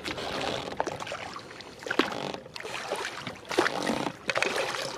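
Oars of an inflatable dinghy being rowed: water swishing and splashing with each stroke, about one stroke every two seconds, with a few light knocks from the oars.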